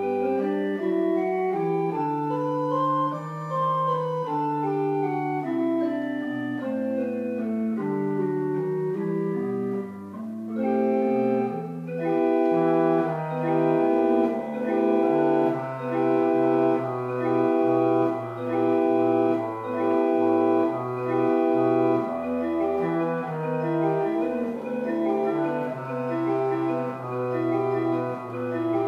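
Pipe organ playing. Over held bass notes a melodic line climbs and falls back. From about midway, repeated chords pulse about once a second, quickening to about two a second near the end.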